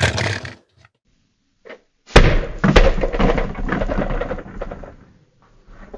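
Plastic building-block drop pod toy slammed down on a table, a sharp knock at the start. About two seconds in comes a second, louder impact as the pod's drop gimmick pops the door off, followed by about three seconds of plastic clattering that dies away.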